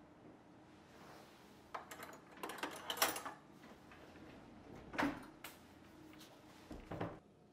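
Dishes and kitchen utensils being handled: a quick run of clinks and knocks about two to three seconds in, a single louder knock about five seconds in, and two more near the end.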